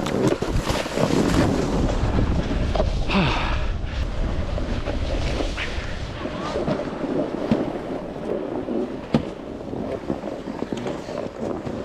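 Wind buffeting the microphone while a snowboard slides and scrapes over snow, a steady rushing noise with a low rumble and a few scattered knocks.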